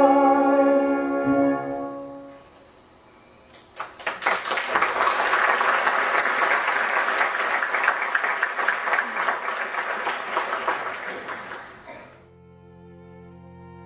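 The song's final held chord fades out, then a theatre audience applauds for about eight seconds before the applause cuts off suddenly. Soft violin and cello music begins near the end.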